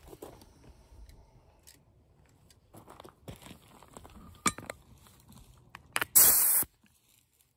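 Faint handling of the air hose and blast gun with a sharp click about four and a half seconds in. Near the end comes a loud, half-second hiss of compressed air through the hand-held blast gun and hose, which cuts off abruptly.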